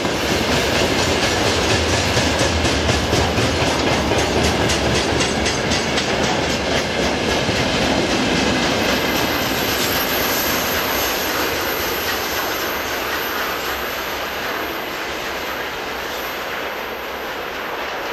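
Freight train's wagons and tank cars rolling past: a steady rumble with fast, regular clickety-clack of wheels over rail joints. The sound fades gradually from about halfway as the tail of the train draws away.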